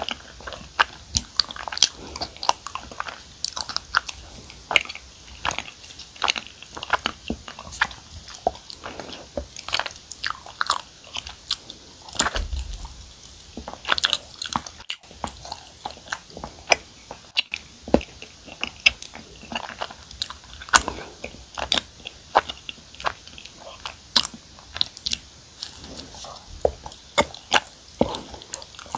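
Close-miked chewing of soft, sticky cream-cheese-filled chapssaltteok (glutinous rice cakes), heard as many short mouth clicks at an irregular pace.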